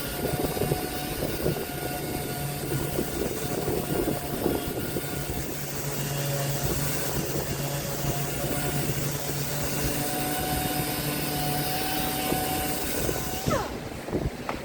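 Electric woodworking power tool running steadily with a motor whine and a hiss. Near the end a brief falling tone sounds and the high hiss drops away.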